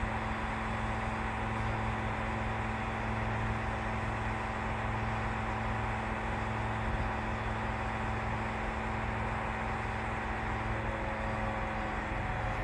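Steady engine drone of a truck-mounted 22-metre aerial platform, its engine running to power the boom's hydraulics as the boom moves.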